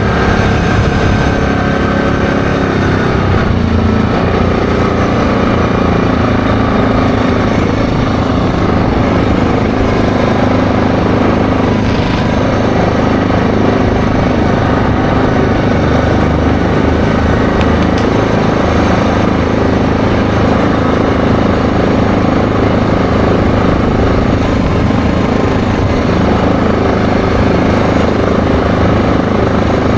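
ATV engine running under way, with tyre and road noise. The engine note shifts about three and a half seconds in, then holds steady.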